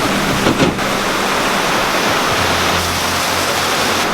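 Small tour boat under way: a steady rush of wind and water over a low, even engine drone.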